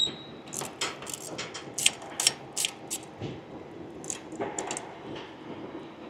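Irregular short clicks and taps of hand tools on the bolts and nuts of an Airbus A320 main wheel, most of them in the first three seconds and a few more later on.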